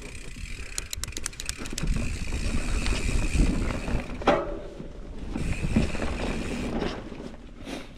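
Mountain bike rolling down dirt singletrack: tyres rumbling over the ground with wind on the helmet camera's microphone, and a thin steady high whine that drops out and returns. Rapid rattling clicks in the first two seconds and one sharp ringing knock a little past the middle.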